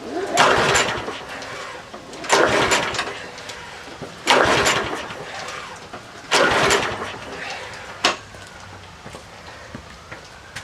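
Troy-Bilt walk-behind lawn mower being pull-started: four recoil-starter pulls about two seconds apart, each a whirr of rope and cranking engine, then a short fifth pull near the end, and the engine does not catch. The carburetor's float needle is hanging up and flooding the bowl.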